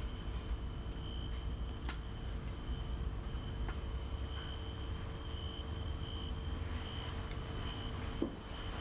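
Quiet night ambience: a steady low hum with faint, on-and-off high chirping of crickets. A single soft knock comes near the end.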